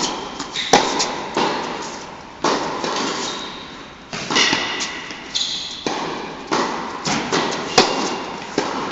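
Tennis rally: a tennis ball struck by rackets and bouncing on the court, a string of sharp irregular pops, each echoing in the indoor hall.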